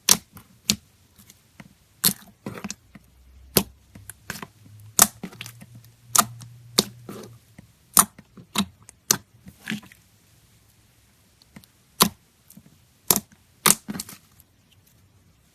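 Slime being pressed and stretched by hand, trapped air popping out with sharp, irregular clicks about a second apart, with a short lull about two-thirds through.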